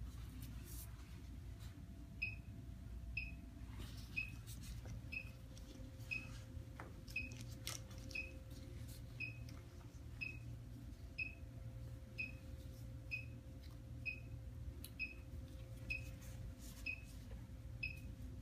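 EKG machine giving a short high beep with each detected heartbeat once the lead cables are clipped on, about one beep a second. A few faint clicks of the lead cables and alligator clips being handled.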